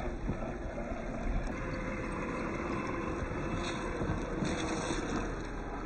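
MST CFX radio-controlled crawler's electric motor and gearbox whining steadily as it drives, over a rumbling, noisy background.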